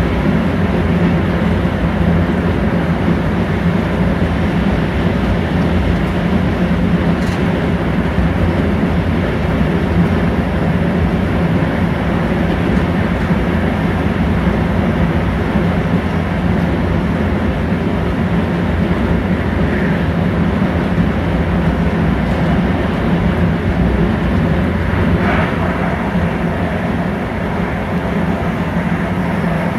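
Steady rolling rumble and running noise heard inside an InterCity passenger coach travelling along the line, with a faint constant hum under it.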